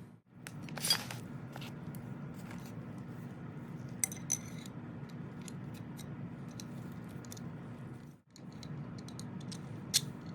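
Small metal parts clinking and tapping as they are handled, with a few sharp ringing clinks, over a steady low hum.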